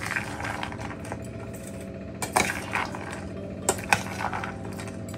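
A metal spoon scraping and clinking against a stainless steel bowl as a moist sprouted-bean salad is stirred, with a few sharper clinks in the second half.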